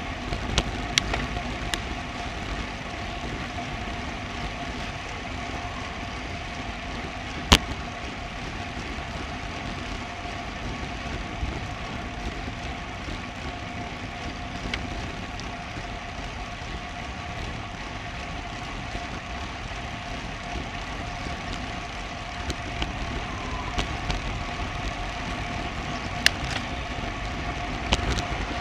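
Steady riding noise from a bicycle on a road climb, recorded by a Garmin VIRB action camera: a constant rush with a faint steady hum, broken by scattered sharp clicks and knocks. The loudest click comes about seven and a half seconds in.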